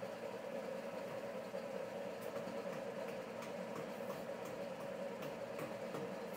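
Steady mechanical hum of workshop machinery, with scattered light clicks and taps from about two seconds in.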